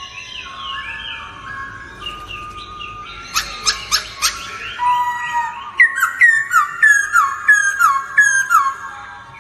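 Several birds singing and calling together, with overlapping whistled notes. A quick cluster of sharp short notes comes a little after three seconds in, then a run of sharp falling notes repeated about three times a second through the second half.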